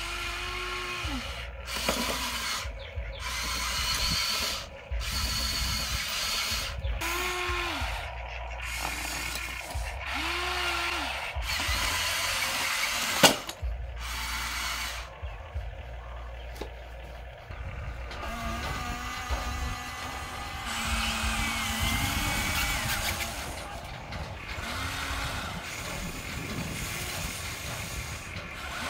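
Huina radio-controlled toy excavator's electric motors whining in short bursts, each rising and falling in pitch, with gear rattle as it drives its tracks and works its boom and arm. A sharp knock about halfway through.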